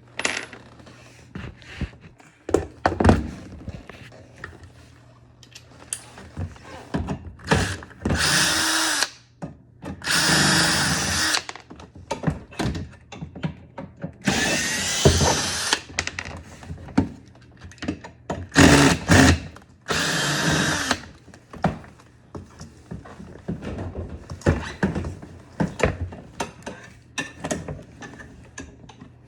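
Cordless drill/driver running in several short bursts of one to two seconds, working screws on a dishwasher's panel, with clicks and knocks of parts being handled in between.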